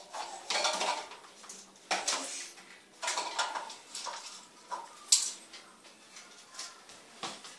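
Small metal bell on a parrot's rope perch jingling in irregular bursts as an African grey parrot clambers and flaps on the perch, with a sharp clink about five seconds in.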